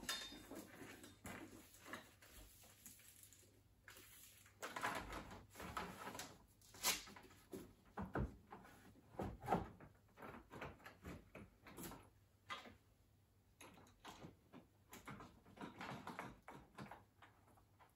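Intermittent handling sounds: scattered light knocks, clicks and rustling as parts are handled, with quiet gaps between.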